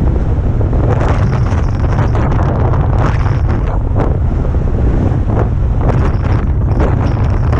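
Strong wind buffeting the microphone in a loud, steady rumble, with repeated hissing surges of rushing water and spray over it.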